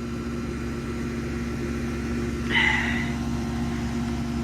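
Steady electrical hum of a 1996 outdoor AC condensing unit running, with a brief higher-pitched sound about two and a half seconds in.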